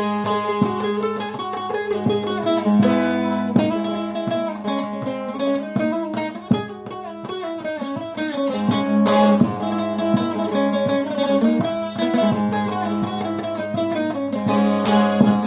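Long-necked bağlama (saz) played solo in an improvised melody, quick plucked notes over a steady drone from the open strings.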